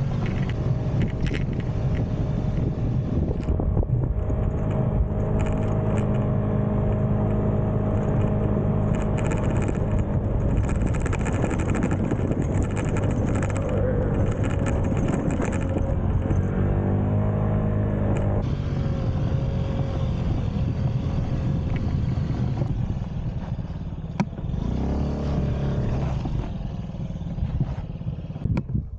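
Small Honda motorbike engine running under way on a dirt road, mixed with wind and tyre noise. The engine speed shifts about two-thirds of the way through, and the sound eases off near the end.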